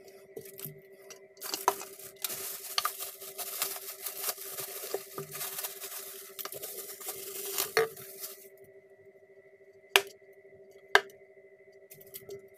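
Clear plastic packaging crinkling and rustling as it is handled and pulled off a bottle, for about seven seconds, then two sharp knocks about a second apart.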